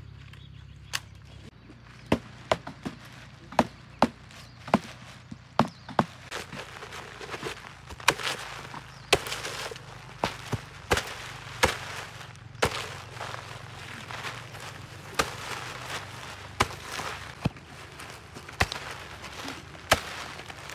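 A blade chopping at woody branches: sharp strikes at an irregular pace of about one a second, with dry leaves rustling between them.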